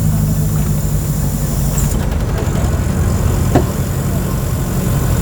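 Mercedes-Benz OF 1722M bus engine running steadily, its note changing about a second and a half in. A short sharp click sounds about three and a half seconds in.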